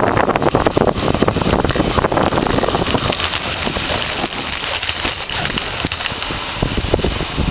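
Dog sled running fast over snow: the runners hiss and crackle steadily on the snow, with wind rushing on the microphone.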